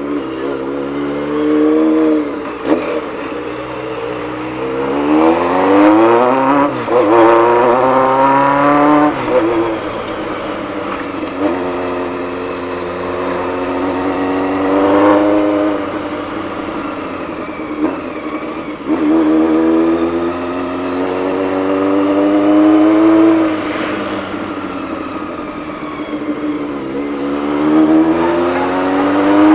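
Honda CBX 750's inline-four engine pulling through the gears on the road. Its pitch climbs steadily and drops back at each shift or easing of the throttle, several times over.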